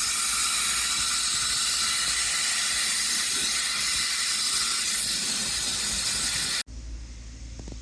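A loud, steady hiss that starts and stops abruptly, cutting off about six and a half seconds in; a few faint clicks follow.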